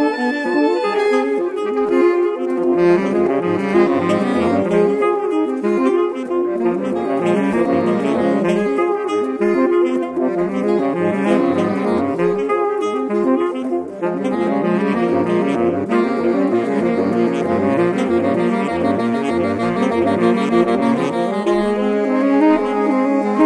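Saxophone quartet, including baritone and soprano saxophones, playing a busy contemporary concert piece with lines moving in quick notes. Near the end a low part settles onto a long held note under the moving upper parts.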